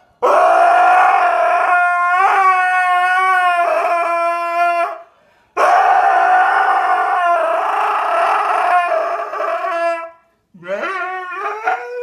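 Dog howling: two long howls of about five seconds each, then a run of shorter howls that bend up and down in pitch near the end.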